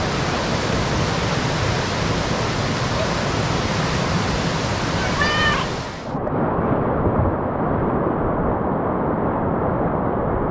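Steady rushing of whitewater in a river rapid. About halfway through, the noise abruptly turns duller and continues, with a brief high rising-and-falling call just before.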